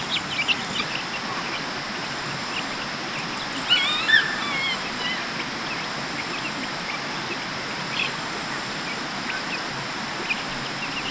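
Young chickens cheeping in scattered short, high calls, with a brief cluster of warbling calls about four seconds in, over a steady hiss of wind.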